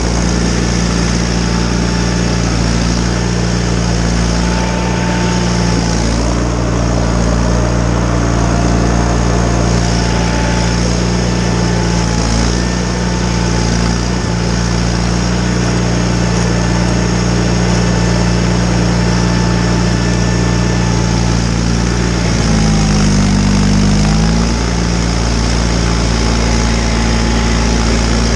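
John Deere 318 garden tractor's Onan twin-cylinder engine running steadily while clearing snow with its front snowblower. Near the end the engine note dips briefly in pitch and picks back up.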